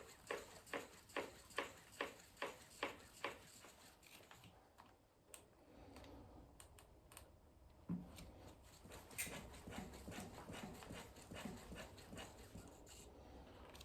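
A RockShox Deluxe Ultimate rear shock on a Canyon Lux mountain bike knocking as the suspension is worked. First comes a regular run of sharp knocks, about two or three a second, lasting a few seconds; then scattered fainter knocks, with a thud about eight seconds in. The knocking is the fault being shown: an unwanted knock from the rear shock.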